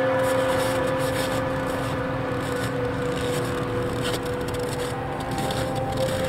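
Dark ambient drone: a steady hum with a few overtones under a layer of noisy hiss and crackle.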